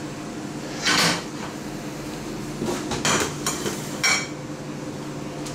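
Stainless-steel saucepan clanking against metal as it is handled: one clatter about a second in, a few knocks around three seconds, and a sharp, ringing clank near four seconds, over a steady hum.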